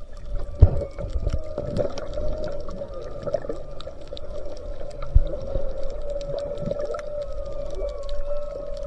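Humpback whale song heard underwater: one long, wavering moan held at about one pitch, with fainter higher calls gliding above it. A constant crackle of small clicks runs underneath, with a couple of dull thumps about half a second in and around five seconds.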